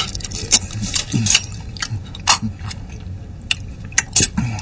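People eating a meal: chewing, with sharp clicks of cutlery on dishes throughout. There are two short, low vocal sounds falling in pitch, about a second in and near the end.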